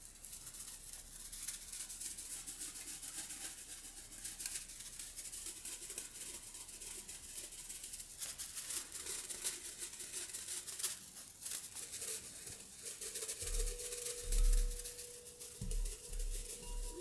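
Dry, crackling rustle, like a shaker, as a small plush teddy bear is handled and shaken close to the microphone. About thirteen seconds in, a crystal singing bowl starts ringing with one steady tone, with a few soft low thumps as the toy is lowered onto the bowls.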